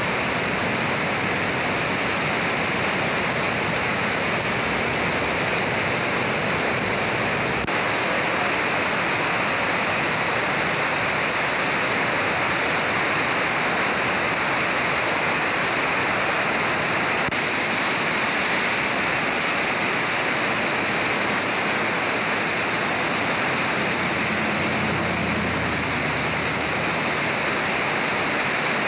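Floodwater of the Kennebec River rushing as churning whitewater: a steady, even rush of water that holds without a break.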